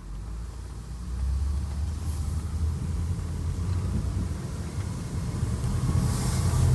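2002 Acura MDX's 3.5-litre V6 engine working under throttle as a low rumble, growing louder about a second in and again near the end, while the SUV barely accelerates. The owner blames this weak take-off on a bad transmission and a clogged catalytic converter.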